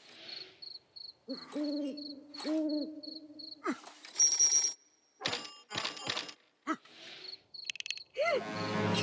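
Cartoon night sounds: a cricket chirping steadily, about three short high chirps a second, with an owl hooting in low arching notes in the first half. A few short clicks and knocks follow, and music comes back near the end.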